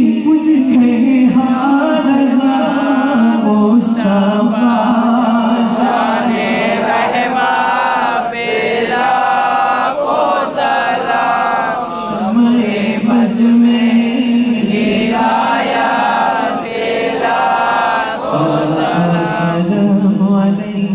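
Unaccompanied male devotional singing of a salaam (Urdu praise song to the Prophet), amplified through a microphone, with long held melodic lines and other men's voices joining in a chant-like refrain.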